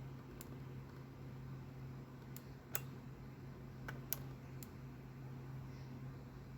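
Several faint, sharp clicks of an electric skateboard's smart anti-spark switch being pressed, over a steady low hum; the setup does not power on.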